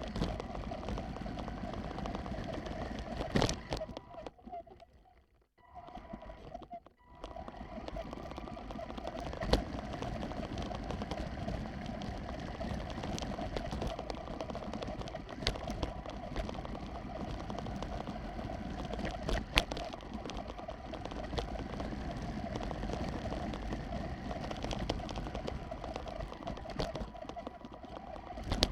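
Radio-controlled racing truck running steadily, with scattered clicks and knocks, and the sound almost dropping out for a couple of seconds about four seconds in.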